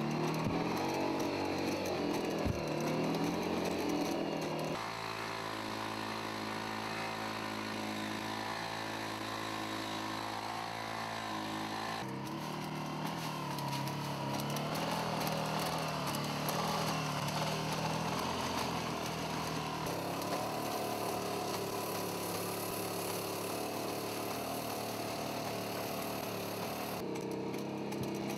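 Steady, chainsaw-like engine drone of a Boston Dynamics four-legged robot's onboard power unit as it walks over rough ground. The pitch and tone change abruptly several times.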